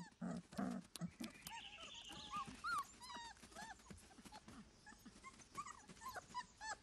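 Wolf pups about six weeks old whimpering in many short, high squeaks as they beg their mother for food.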